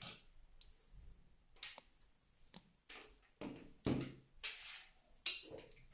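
A series of sharp clicks and knocks from handling the USB wall outlet and its plug, spaced irregularly, the loudest about four and a bit over five seconds in.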